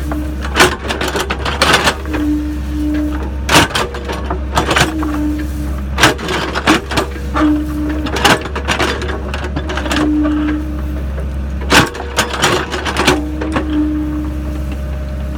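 Sany SY55C mini excavator's engine running steadily under work, with a short tone repeating about every second and a half and a scatter of sharp cracks and knocks.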